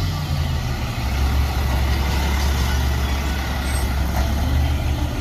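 Rear-loader garbage truck's engine running as the truck drives slowly past, a steady low drone.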